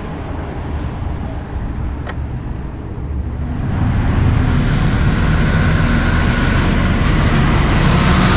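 Highway traffic heard from afar, then, from about three and a half seconds in, the louder diesel engine of a semi-truck pulling a tanker B-train as it drives past.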